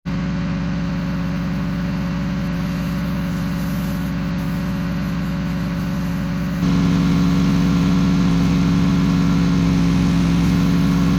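Small gas engine of a pressure-washing rig running steadily at constant speed with an even hum. It becomes suddenly louder about two-thirds of the way through.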